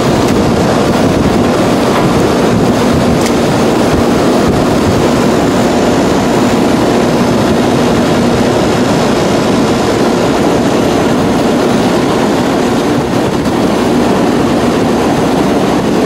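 Rheem 2-ton central air conditioner's outdoor condensing unit running: the condenser fan blowing air with a steady rush and a low hum from the unit, its fan now running on a newly replaced capacitor.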